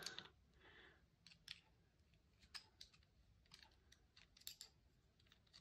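Faint, scattered small clicks of a screwdriver working a bolt in the rifle's steel action, a few light ticks a second or so apart with near silence between.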